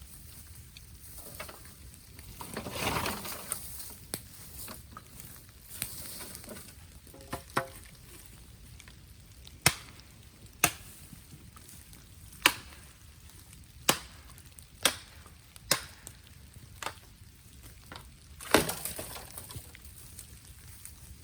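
Bamboo burning in a bonfire: a low sizzling hiss, then a run of sharp cracks roughly a second apart from about ten seconds in, the last the loudest.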